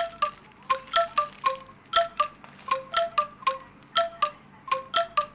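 Background music: short, bell-like struck notes in a regular repeating rhythm, several a second, each dying away quickly.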